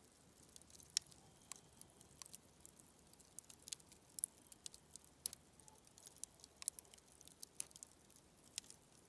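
Campfire burning down, giving its last faint crackles: scattered, irregular sharp pops and ticks from the burning wood, the loudest about a second in.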